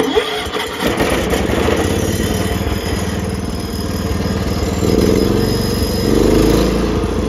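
John Deere 210 garden tractor's 10-horsepower Kohler single-cylinder engine starting right up and running, getting louder about five seconds in.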